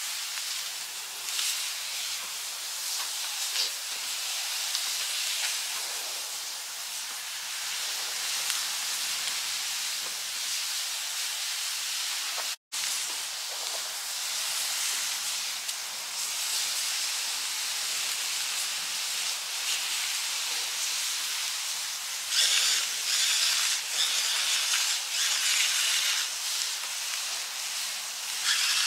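Skirt steak and vegetables sizzling in skillets over a log fire: a steady hiss with small crackles, cut off for a moment about halfway through. The sizzle grows louder and more broken from about 22 seconds on.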